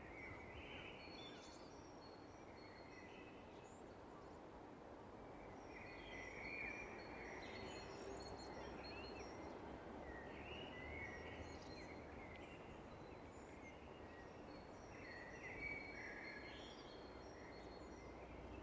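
Dawn chorus: several songbirds singing and chirping at once, in overlapping short phrases, faint over a steady background hiss.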